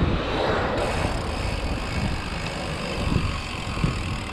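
Steady rumbling noise of riding a bicycle along a street: wind and tyre noise.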